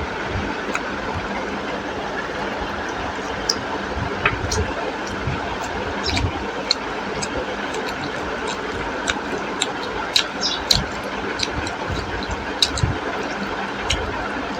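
Eating sounds: scattered small clicks and smacks of chewing chicken and rice in curry, over a steady background noise.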